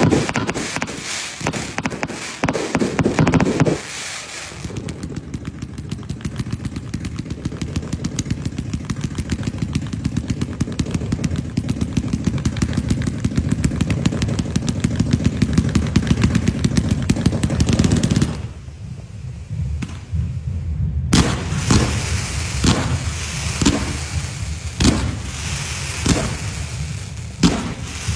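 Firecrackers going off. A long run of rapid pops grows steadily louder, and after a short quieter spell, separate sharp bangs come about once a second.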